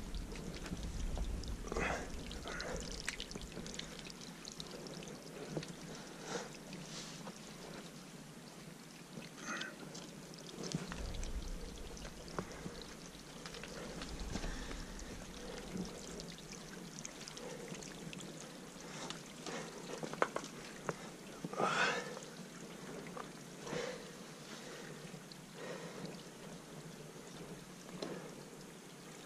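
Faint scuffs and taps of a climber's hands and shoes on rock, scattered through the climb over a low steady hiss, with a few louder scrapes.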